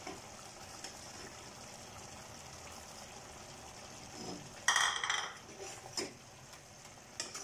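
Chicken simmering quietly in a pot, then a short scrape of a steel spoon against the pot as the ground masala is worked in, followed by a couple of light knocks.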